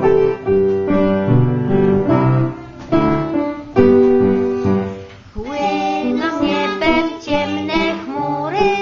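Piano playing the introduction of a children's song, steady held notes and chords. Singing comes in about five and a half seconds in and runs on over the piano.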